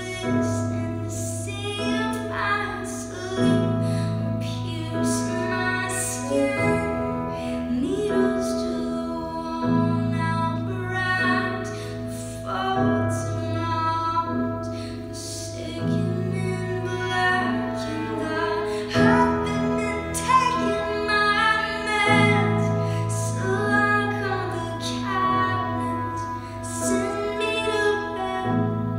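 A woman singing over held keyboard chords that change every few seconds, with a violin playing along.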